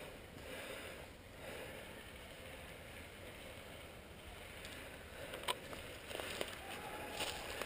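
Faint, steady outdoor hiss of a quiet woodland, with soft rustling and one sharp click about five and a half seconds in, followed by a few softer ticks.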